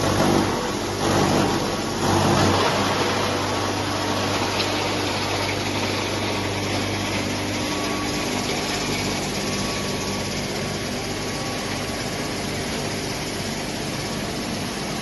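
DK-50 disc-and-hammer-drum wood crusher, driven by an electric motor, running with a dense mechanical roar over a steady hum. It surges louder about three times in the first couple of seconds, then runs on evenly.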